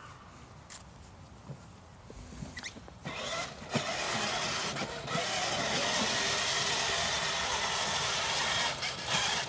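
Battery-powered toy ride-on motorcycle driving: its small electric motor and gears whir steadily with the plastic wheels rolling. The whirr starts about three seconds in and gets louder from about five seconds in.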